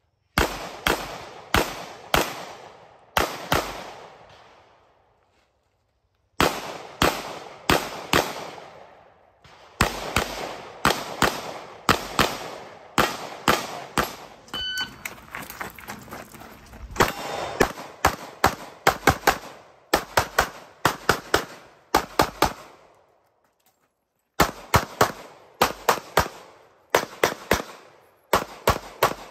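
Rapid strings of 9mm pistol shots from a TISAS MAC 9 DS, many fired as quick pairs, each shot trailing off in an echo, with short gaps between strings while the shooter moves between positions.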